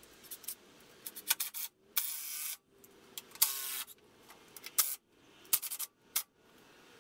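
Cordless drill driving screws into a wooden 2x4 frame in two short bursts, about two and three and a half seconds in, between sharp clicks and knocks from handling the drill and the wood.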